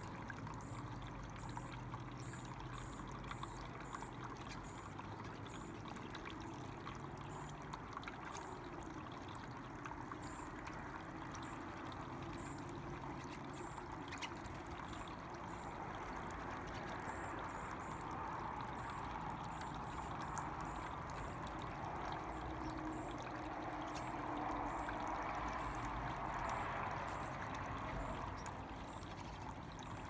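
Small pump-driven tabletop water fountain: a thin stream of water pouring from its spout and trickling down into its tiered bowls, a steady splashing trickle that grows a little louder in the second half.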